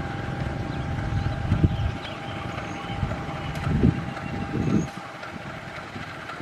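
GE-built CC 203 diesel-electric locomotive idling while it stands at the platform: a steady low engine rumble with a thin constant whine, and a few louder low swells about one and a half, four and five seconds in.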